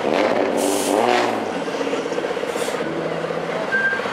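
MAN race truck's diesel engine idling with a steady, even throb, a brief rise and fall in pitch about a second in, and two short hisses, one under a second in and one around two and a half seconds in.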